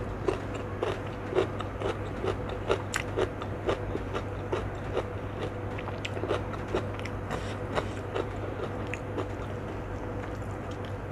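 Close-miked chewing of crunchy food, starting with a bite of raw cucumber: wet crunches about twice a second that thin out toward the end. A steady low hum runs underneath.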